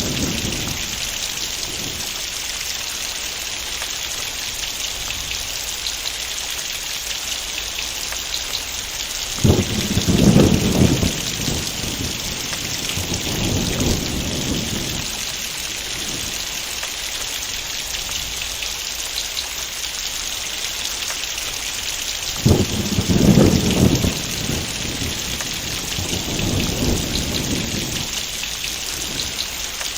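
Heavy rain falling steadily, with two peals of thunder: each starts suddenly, a third of the way in and again about three quarters in, and rumbles on with a second swell for several seconds.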